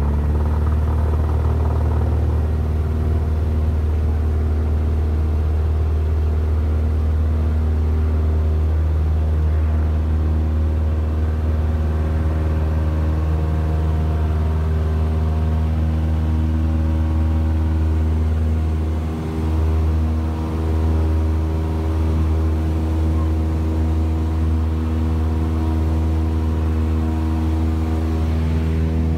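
Cessna 172's piston engine and propeller running steadily at full takeoff power, heard inside the cabin during the takeoff roll and climb-out, with two brief dips in loudness about two-thirds of the way through.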